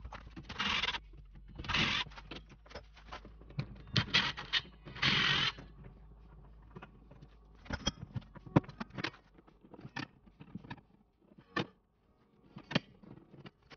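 Handling noise of hand tools and hardware against a drywall wall: several short scraping rubs in the first half, then scattered sharp clicks and taps as a metal square is set against the wall.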